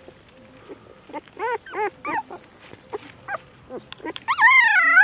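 Young puppies whining: a few short, high squeaky whimpers, then from about four seconds in a loud, long wavering whine.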